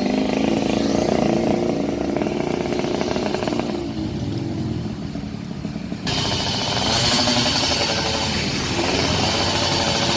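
Yamaha RX-King 135 cc two-stroke single-cylinder motorcycle engine, fitted with a Kimcil racing ignition magnet, running steadily. About six seconds in the sound abruptly turns brighter and hissier.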